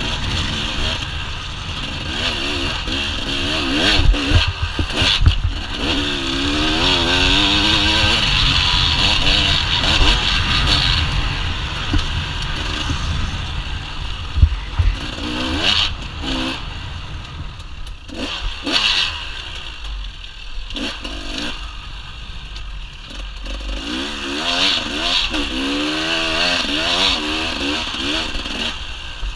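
2013 KTM EXC 300 two-stroke enduro engine with an FMF exhaust, ridden off-road and heard from a helmet camera: the revs rise and fall continually, climbing hard twice, with a steady rush of wind. Several sharp knocks and clatter come from the bike over rough ground.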